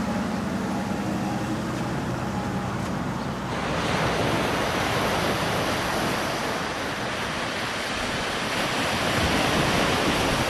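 Vehicle road noise for about the first three and a half seconds, then an abrupt change to a steady rushing wash of small waves at a pebbly shoreline, with some wind.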